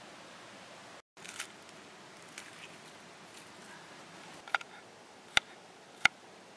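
Soft rustles of papery garlic skins being handled, then sharp knocks of a knife cutting through garlic cloves onto a wooden cutting board, a few in the last two seconds with the last two the loudest, over a faint steady hiss.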